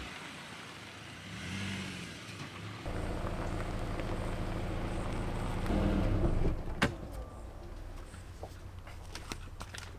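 Subaru Impreza hatchback's flat-four engine running low and steady as the car drives slowly in and pulls up. It comes in about three seconds in, swells, and dies away after about six seconds, followed by a single sharp click.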